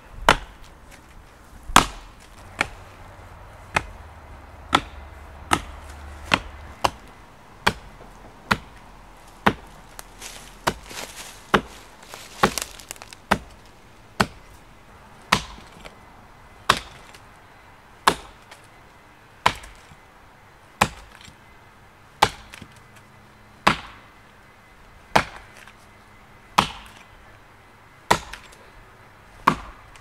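Axe chopping a felling notch into the trunk of a dead tree, believed to be ash: a run of about 28 sharp strikes of the blade biting into wood. The blows come quickly in the first half and slow to about one every second and a half.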